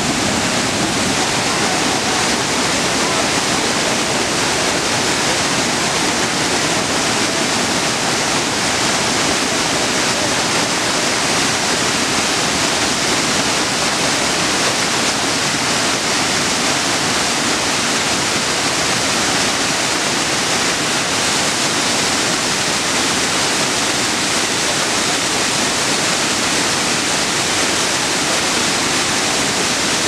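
Waterfall water pouring and splashing over rocks at close range: a loud, steady rush with no breaks.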